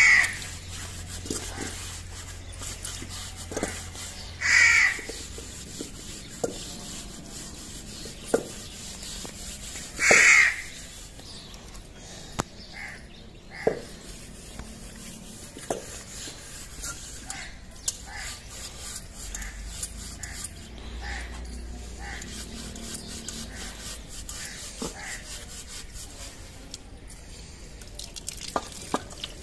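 A crow cawing, three loud caws about five seconds apart in the first ten seconds and fainter calls later. Under the calls, steel dishes clink and are scrubbed.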